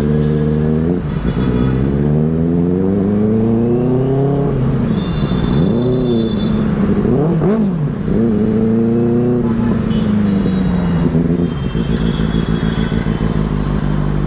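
Benelli 600i inline-four engine pulling up through the revs, then blipped up and down a couple of times in quick succession, before dropping back to a steady idle for the last few seconds.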